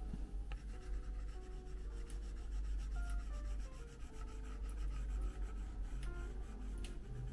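Stylus tip rubbing over an iPad's glass screen in drawing strokes, with a few light taps.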